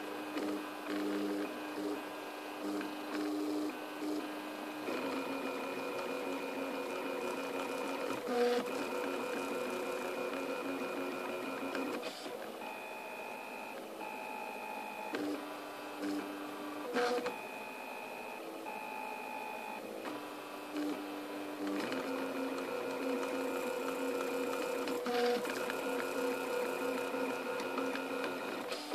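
Printrbot 3D printer printing, its stepper motors whining in steady tones that jump to new pitches every second or so as the head changes moves. A few short clicks sound along the way.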